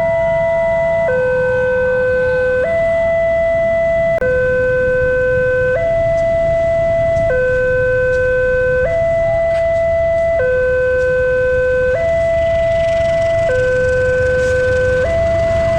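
Railway level-crossing warning siren sounding a slow two-tone alternation, high and low, each tone held about a second and a half. A low rumble runs underneath.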